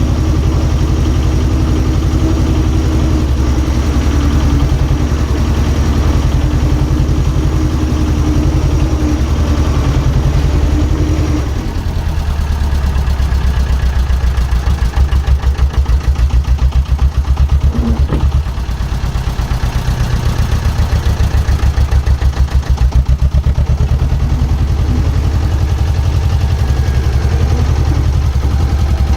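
Diesel engine of compact site plant running steadily, with a higher tone that stops about a third of the way in, after which the engine note throbs in rapid pulses at times.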